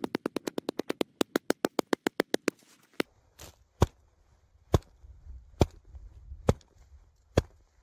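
A hand striking an avalanche shovel blade laid on top of an isolated snow column, the tapping of an extended column test on the snowpack. A rapid run of sharp taps lasts about three seconds, then slower, heavier blows come a little under one a second.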